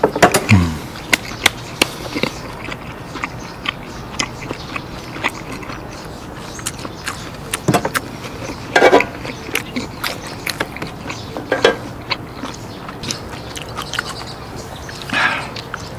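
Close-up chewing of dry-aged steak, with many short, sharp clicks and taps as metal tongs handle the meat on a wooden cutting board.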